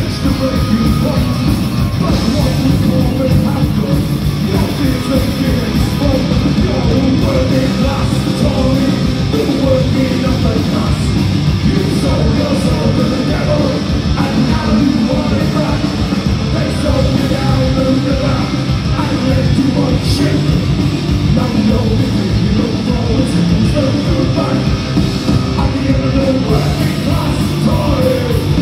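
Live punk rock band playing: distorted electric guitars, bass and drums with the singer's vocals over them, loud and without a break.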